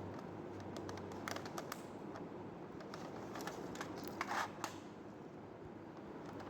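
Scattered light clicks and brief rustles of plastic toy fishing-game pieces being handled, over a steady low hum.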